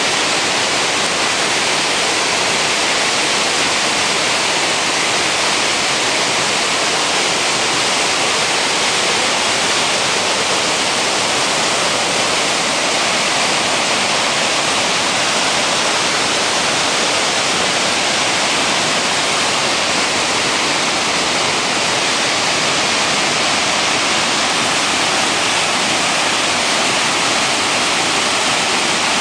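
Floodwater pouring through a dam's open spillway gates, churning and rushing. The sound is loud and steady, with no change in level.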